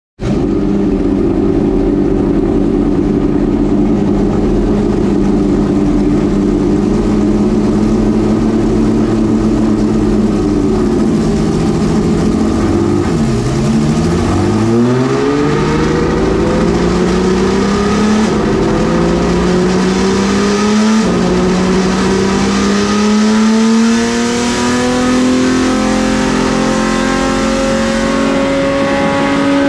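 Homemade naturally aspirated V12 race engine running at a steady pitch, then dropping briefly about thirteen seconds in. It then climbs steadily in pitch as it revs up on a wheel dyno, with a short drop in pitch about two-thirds of the way through before the climb carries on.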